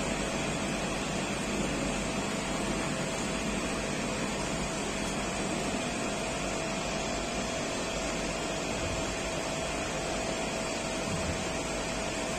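Steady mechanical hum and rushing noise with a faint constant tone, unchanging throughout.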